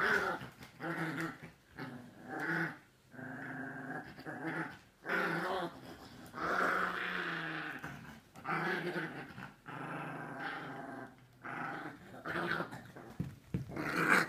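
Dogs growling over and over in bouts of one to two seconds, with short breaks between, while tugging against each other over a rope toy.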